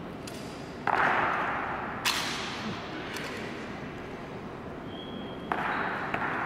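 Sharp claps and slaps from an honor guard's rifle drill with M1 Garand rifles, echoing in a large marble hall. Loud strikes come about a second in and again a second later, with a brief high ring and another strike near the end.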